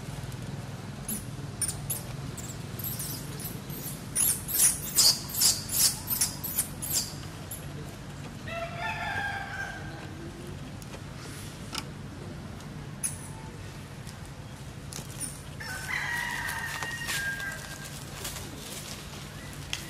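A quick run of about eight sharp cracks, then an animal calls twice, each call a drawn-out pitched cry about a second and a half long, one about halfway through and one near the end.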